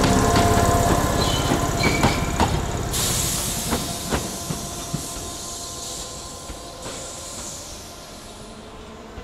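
Electric commuter train running past on the tracks, its wheels clacking over rail joints with thin squealing tones, fading steadily as it moves away. A sudden hiss starts about three seconds in and dies away.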